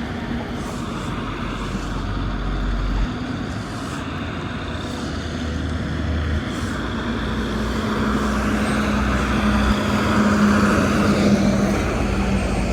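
Engine noise of a passing motor vehicle, a steady hum that grows louder from about eight seconds in and eases near the end.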